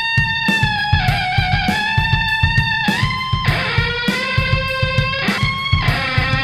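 Otamatone Deluxe played through guitar effect pedals, giving a distorted, electric-guitar-like tone: long held notes that slide up and down between pitches, over a steady drum beat.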